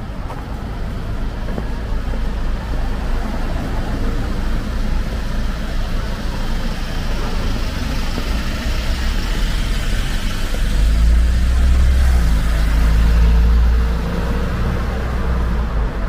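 Street traffic with vehicles driving past. One passes close about eleven seconds in, and its low engine sound is loudest for about three seconds before dropping away.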